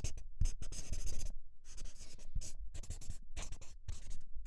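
Felt-tip marker writing and drawing: a run of quick scratchy strokes, some short and some nearly a second long, with brief pauses between them.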